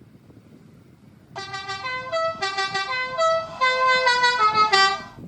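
A musical horn playing a short, loud tune of quick changing notes, starting about a second and a half in and stopping sharply near the end.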